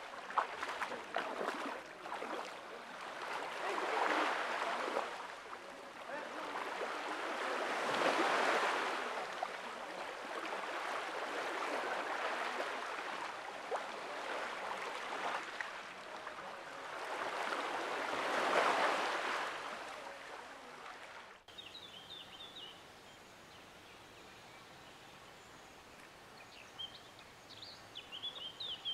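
Wind gusting through trees, a rushing noise that swells and fades in irregular surges and cuts off abruptly about 21 seconds in. After that, a quieter background with a few short bird chirps near the end.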